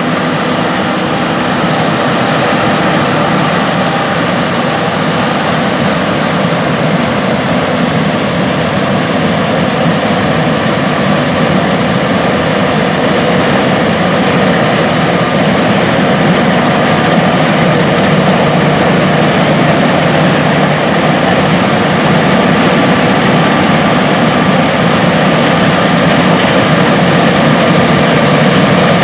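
John Deere S780 combines running in a wheat field: a dense, steady engine and machinery drone that grows gradually louder.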